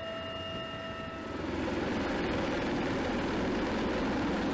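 Aircraft noise with a steady high whine, heard from inside a cabin, changes about a second and a half in to louder, rushing engine and rotor noise of a V-22 Osprey tiltrotor flying low overhead.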